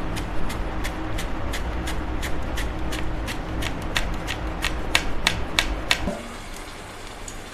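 Raw banana being pushed over the blade of a handheld plastic vegetable slicer, a short scraping cut with each stroke about three times a second. The strokes stop about six seconds in.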